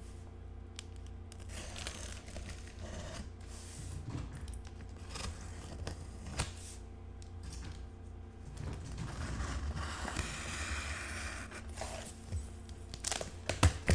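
Packaging being handled and torn open during an unboxing: rustling, scraping and scattered clicks, with a longer stretch of rustling about nine to twelve seconds in and a sharp knock near the end.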